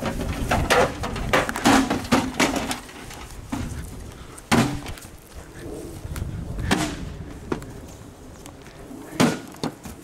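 Knocks and clatter from a battered microwave oven's sheet-metal casing as it is handled and moved on grass. A quick run of knocks comes in the first few seconds, then single sharp knocks at about four and a half, six and a half and nine seconds in.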